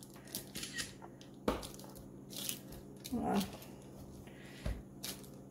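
A kitchen knife cutting through a slab of hard-set chocolate fudge on parchment paper: quiet crunching and crackling, with a few sharp clicks and a dull thump as the blade goes through. The fudge is brittle and breaks like bark rather than slicing cleanly.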